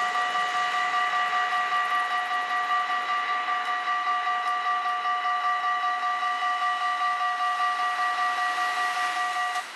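Dutch level crossing warning bell ringing in a fast, even pulse while the barrier booms rise after the train has passed. It cuts off suddenly near the end, as the booms reach upright and the warning ends.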